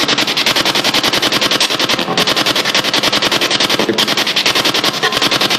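SB7 spirit box sweeping rapidly through radio frequencies: a loud, fast, evenly chopped stream of radio static.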